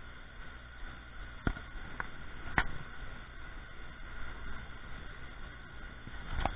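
Steady rush of water pouring over a dam spillway, with a faint steady high whine, broken by a few sharp clicks and knocks as a cast net is handled: three close together early on, one more near the end.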